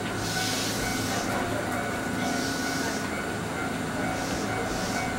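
Ichibata Electric Railway 2100 series electric train standing at a station, heard from inside the car. Its onboard equipment gives a steady hum with several steady tones, and a soft hiss swells and fades three times.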